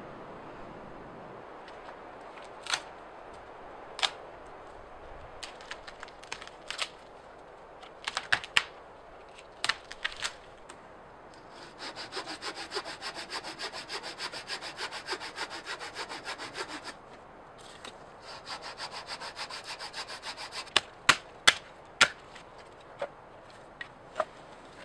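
Wooden frame saw cutting dead pine wood in quick, even strokes for about five seconds, then after a short pause a second, shorter run of strokes. Sharp cracks of dry wood snapping come before the sawing and again just after it.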